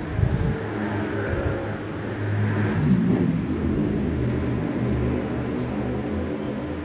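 A motor vehicle engine running and changing pitch, with short high falling chirps repeating about once a second.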